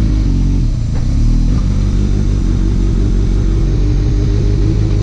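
Kawasaki Ninja ZX-6R inline-four sport bike with an Akrapovič exhaust running on the road, its engine note steady and loud. The pitch dips briefly about half a second in and then holds steady again.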